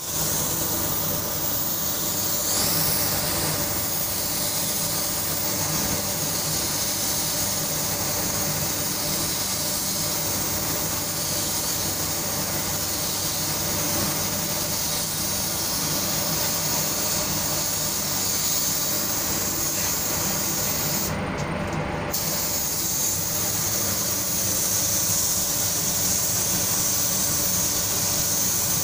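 Gravity-feed compressed-air paint spray gun hissing steadily as it sprays paint onto a car body panel, over a low steady hum. The high hiss breaks off for about a second around two-thirds of the way through, then resumes.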